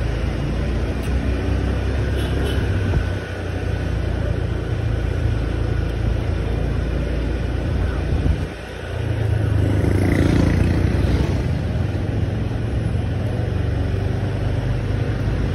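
Honda scooter being ridden: a steady low rumble of its engine and road noise with wind on the microphone. The rumble eases briefly about eight seconds in, then comes back louder.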